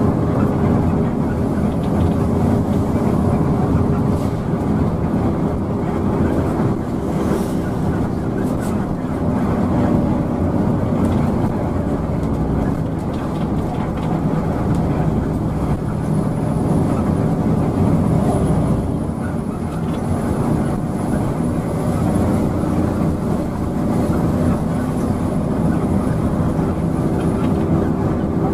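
Steady engine drone and road noise inside an intercity bus cruising on the highway, with the engine's low hum shifting slightly in pitch.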